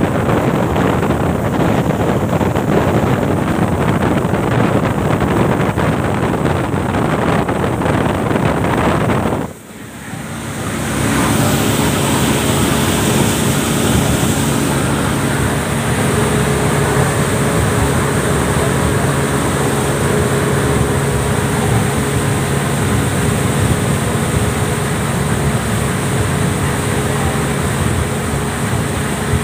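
Passenger speedboat under way at speed: at first a loud rush of wind and water spray past the hull, then, after a sudden brief drop about ten seconds in, the steady drone of the boat's engines heard from inside the cabin.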